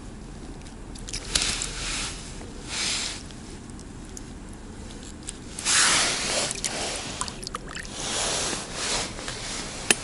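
Water sloshing and splashing in several short bursts, the loudest about six seconds in, as a small caught roach is handled at the water's edge; a sharp click near the end.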